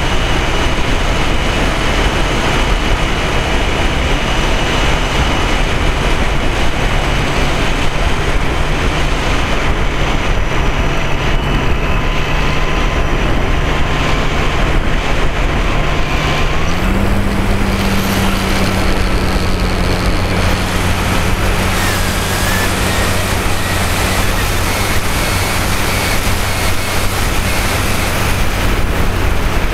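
Radio-control model airplane's motor and propeller running steadily, heard loud and close from the camera mounted on the plane. The hum steps up in pitch about halfway through and holds there, as the motor speeds up.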